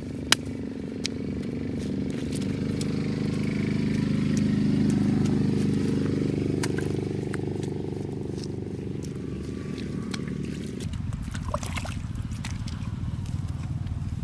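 A small engine runs steadily, growing louder about five seconds in and then fading, and cuts off abruptly about eleven seconds in. Scattered clicks and squelches of hands working wet mud follow.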